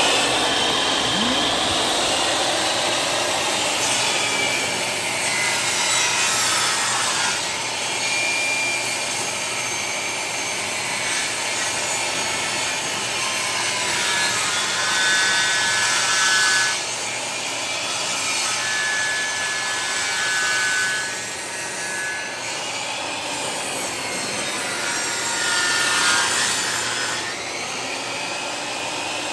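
Portable jobsite table saw ripping a long board lengthwise along the fence, the blade cutting steadily through the wood with small rises and dips in loudness as the board is pushed through.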